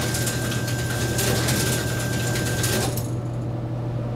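A mechanical whirring, crackling noise with a thin steady whine, lasting about three seconds and cutting off abruptly, over a steady low electrical hum.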